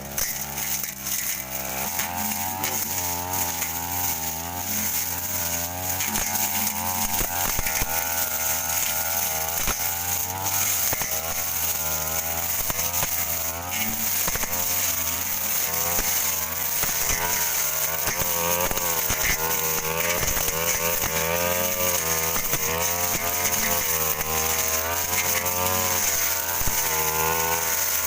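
Stihl brush cutter engine running at high revs, picking up speed about two seconds in, with its pitch rising and falling constantly as the Tanika blade cuts through thick undergrowth.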